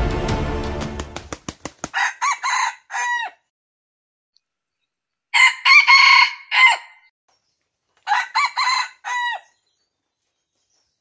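Background music dies away over the first two seconds, then a rooster crows three times, a few seconds apart.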